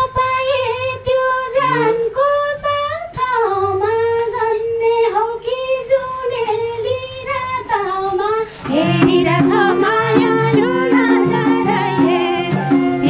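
A woman singing a long, gliding dohori melody line into a microphone. About nine seconds in, the band's accompaniment comes in fuller under her, with sustained chords and hand-drum strokes.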